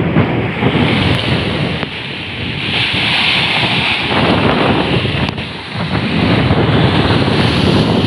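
Rough sea surf surging and breaking in stormy weather, with strong wind buffeting the microphone in gusts.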